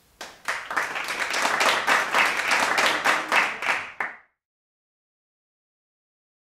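Applause, many hands clapping together, cutting off suddenly about four seconds in.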